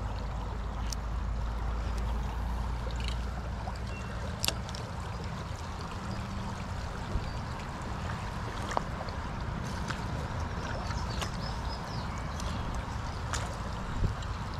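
Creek water running steadily over a low, continuous rumble, with a few faint clicks.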